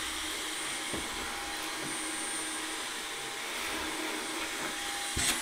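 Cordless handheld vacuum cleaner running steadily with a thin high whine, sucking up drill shavings from a plastic motorcycle top case. A short knock sounds near the end.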